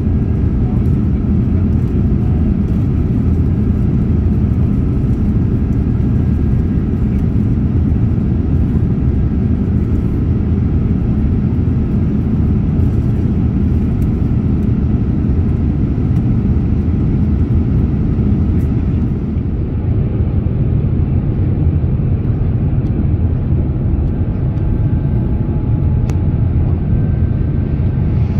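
Steady low roar of an Airbus A350-900's Rolls-Royce Trent XWB engines and rushing airflow, heard inside the passenger cabin during the climb. The sound turns a little duller about two-thirds of the way through.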